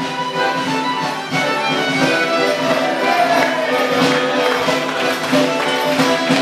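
Morris dance band playing a lively traditional dance tune, led by fiddle and melodeon, with a regular beat under it.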